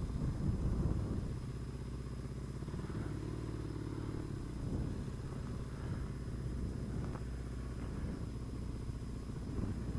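Vehicle engine running steadily while driving on the road, a low even hum with road noise.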